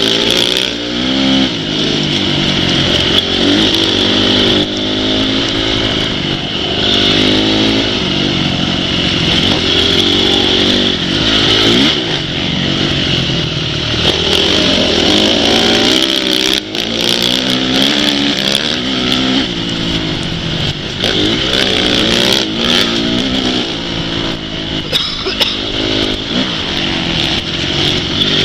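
Several off-road motorcycle engines revving, their pitches rising and falling over one another as the bikes accelerate and ease off.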